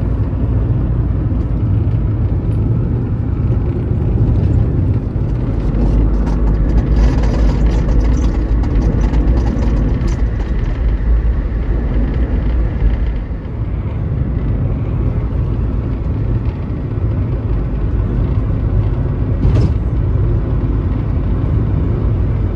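Car driving along a road: a steady low rumble of engine and road noise, louder for several seconds in the middle.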